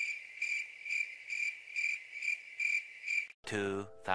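Cricket-chirp sound effect: a steady high trill pulsing about twice a second, the stock 'crickets' gag for a long awkward wait. It stops shortly before the end, when a man's voice comes in.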